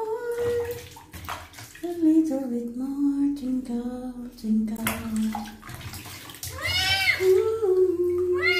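Water sloshing and splashing in a plastic basin as a kitten is washed by hand, while the kitten meows. The meows come in long, wavering cries, with loud, sharp meows about seven seconds in.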